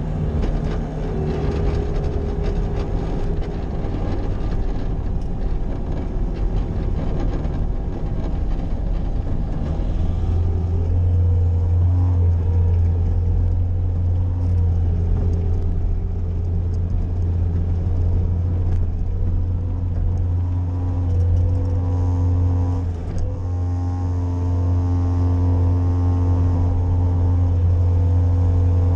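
Bobcat skid-steer loader's engine running steadily while plowing snow; about ten seconds in its low note grows stronger and stays that way, as under heavier load or higher revs.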